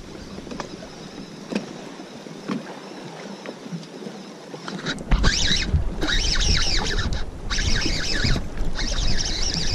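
Baitcasting reel being cranked in stretches of about a second from about halfway through, reeling in a hooked fish, with wind buffeting the microphone. Before that, only light clicks over lapping water.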